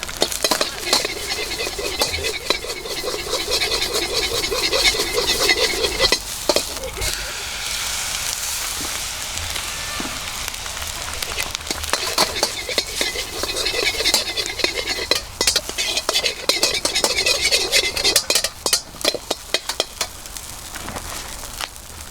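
Fried rice sizzling in a hot wok while it is stir-fried, with quick rhythmic scraping of a metal utensil over the wok. The sizzle runs steadier for a few seconds in the middle, and later come many sharp clanks of the utensil against the wok.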